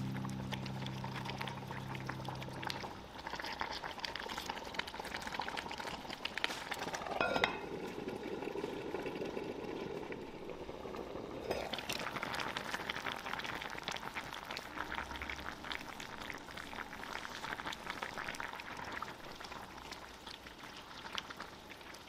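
Dakbokkeumtang, Korean spicy braised chicken, bubbling at a simmer in a cast-iron pot, with a wooden spoon stirring the pieces. The bubbling dulls for a few seconds between two knocks, about seven and twelve seconds in; the second comes as the pot lid is lifted off.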